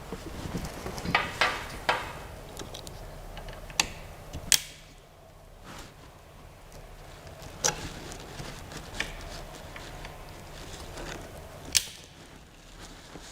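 Small tools and 3D-printer parts being handled, giving scattered sharp clicks and knocks, about seven of them, spaced irregularly with quiet stretches between.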